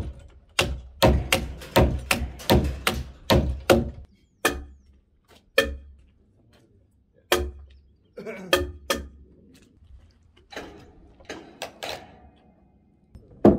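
Hammer blows on timber: a quick run of sharp knocks, about four a second, for the first four seconds, then scattered single knocks.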